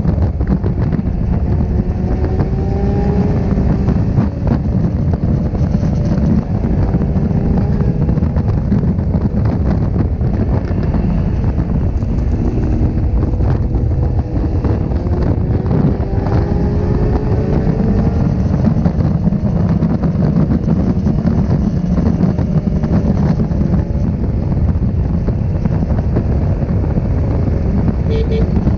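Honda CB1300's inline-four engine at speed, heard from on board, its pitch rising again and again as it pulls through the gears, under heavy wind buffeting on the microphone.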